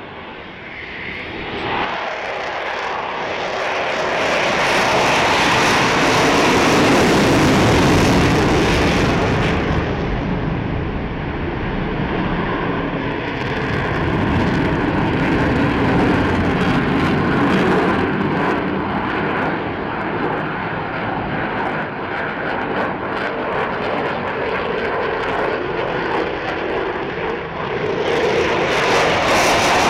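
Aircraft engine noise from a low display pass, building over the first several seconds and staying loud, with a faint steady whine running through the middle.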